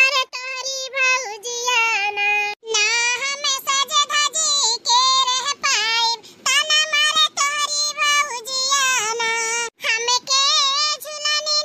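A pitched-up, cartoon-style woman's voice talking in quick, sing-song phrases.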